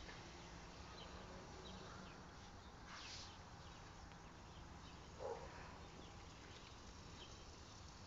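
Near silence: faint outdoor garden ambience with a few faint, distant bird chirps and one short soft sound about five seconds in.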